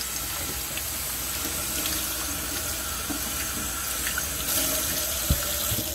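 Kitchen faucet running, its stream of warm water splashing over a silicone popsicle mold and into a stainless steel sink, with a single brief knock near the end.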